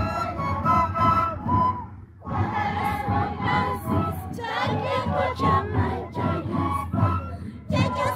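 Several pinkillu, long wooden Andean duct flutes, playing a shrill melody together over a crowd of dancers singing and shouting. The sound drops out briefly about two seconds in.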